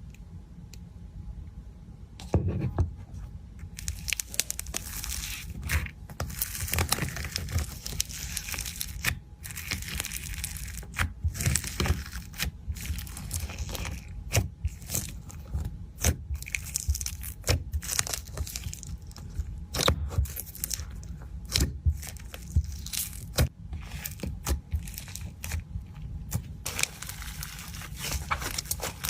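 Slime being worked by hand, squeezed and pressed, giving a dense run of irregular sharp clicks and pops that starts about two seconds in.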